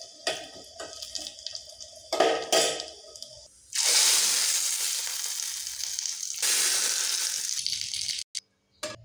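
Dried red chillies and cumin frying in hot oil in a small tadka pan, with a metal spoon scraping and clinking against the pan. About four seconds in, the hot tempering is poured onto cooked dal and sets off a loud sizzle that lasts about four seconds, swells again partway through and cuts off suddenly.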